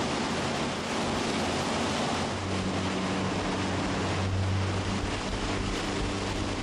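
Motorboat under way at speed: water rushing and spraying along the hull and in the wake, with wind and a steady engine hum that grows stronger about two and a half seconds in.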